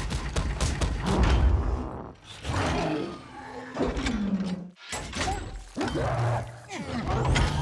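Film fight sound effects: a run of heavy punch impacts, and the Hulkbuster armor's metal parts clanking and grinding as its fist is grabbed and wrenched.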